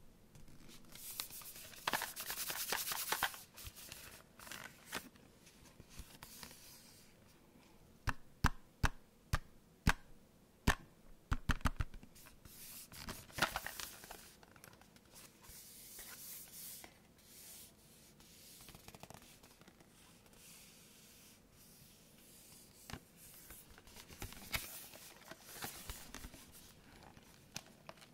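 Hands handling a cardboard retail package of foam ear tips close to the microphone: crinkly rustling and scraping of the card, with a run of sharp taps about eight to twelve seconds in.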